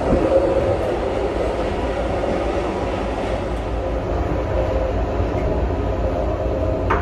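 Steady running noise of a moving Siemens Venture passenger coach heard inside its restroom: a low rumble with rolling noise from the track. A short sharp click comes near the end.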